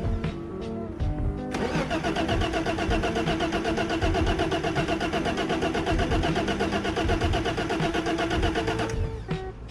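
BMW E30 engine being cranked over by its starter with a fast, even pulsing, in two attempts with a short break about a second in, stopping near the end; the engine does not catch.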